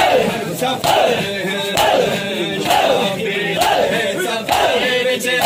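A crowd of men doing matam, striking their chests in unison about once a second, each stroke a sharp slap. Between the strokes the crowd chants in loud, rising and falling cries.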